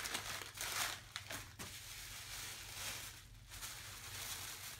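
Gift wrapping paper crinkling and tearing as a small present is unwrapped by hand, loudest in the first second with a few sharp crackles after, then softer rustling of tissue paper.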